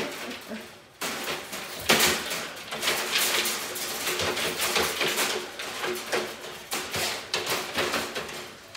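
Wire dog crate rattling and clanking over and over as a Labrador moves about restlessly inside it.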